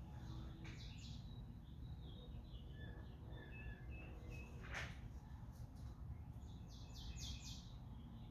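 Faint bird chirps and calls over a low steady hum, with a group of quick chirps near the start and again near the end, and one soft click a little under five seconds in.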